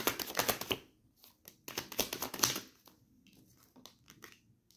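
Tarot deck being shuffled by hand: a fast run of card flicks for about the first second, another burst around two seconds in, then faint light clicks of cards being handled and laid on the table.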